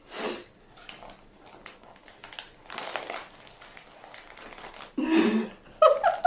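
A person eating without using their hands: three bursts of crunching and crinkling noise, with a short voiced grunt near the end.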